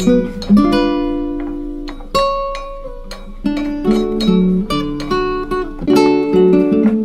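Background music on an acoustic guitar: plucked notes and chords, each ringing and then fading.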